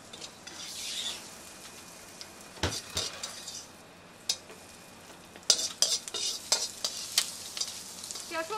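A metal ladle scraping and knocking against a wok as stir-fried food is pushed out onto a plate, with a light sizzle from the hot food. The sharp knocks come in a scattered run through the second half.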